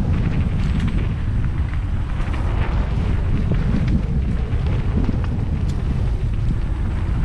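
Wind buffeting a GoPro action camera's microphone during a mountain-bike ride down a dirt single-track, a steady loud rumble with scattered small clicks and rattles from the bike and trail.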